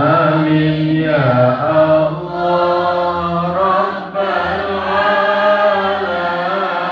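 A man chanting an Islamic devotional song into a microphone, in long drawn-out notes that slide between pitches, sung in three long phrases with short breaks about two and four seconds in.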